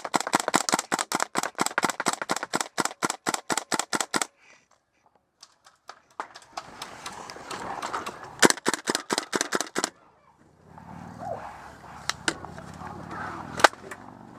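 Airsoft gun firing a long rapid string of shots, about seven a second, for some four seconds. After a short pause comes a second, shorter string, then a few single shots near the end.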